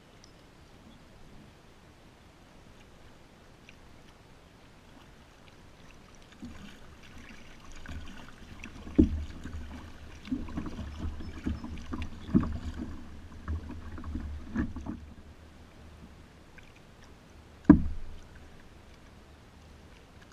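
Kayak paddling after a few quiet seconds: splashing paddle strokes with several sharp knocks on the kayak hull, then one last loud knock near the end.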